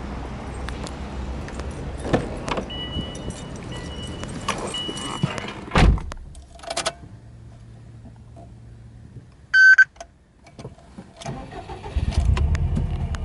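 Handling noises and a car door shutting with a heavy thud about six seconds in, short electronic beeps a few seconds later, then the Subaru Impreza WRX STi's turbocharged flat-four starting near the end and running at idle with a low steady rumble.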